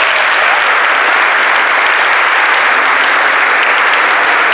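Audience applauding, a loud, steady patter of many hands clapping.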